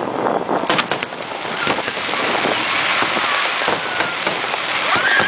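Aerial fireworks going off: a rapid series of sharp bangs and pops, with a dense crackling hiss about two seconds in.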